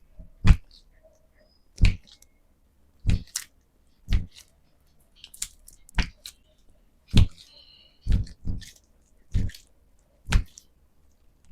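A series of sharp hand slaps on a person's body during chiropractic work, about one a second, roughly eleven in all.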